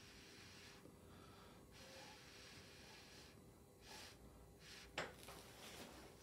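Faint hiss of breath blown through a plastic straw onto wet acrylic paint, in several separate puffs, one of them longer than the rest. A short sharp click about five seconds in.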